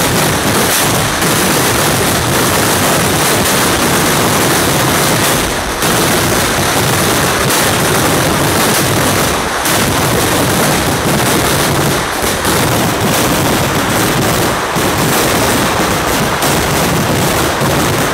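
Kerala temple-festival fireworks (vedikettu) going off in a rapid, continuous barrage, the reports so close together they merge into one loud, unbroken crackle, easing only briefly about six and ten seconds in.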